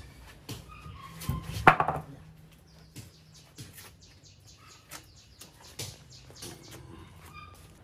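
Rough chunks of scrap wood knocking and scraping as they are lifted and handled, with one louder knock about a second and a half in. Birds chirp now and then in the background.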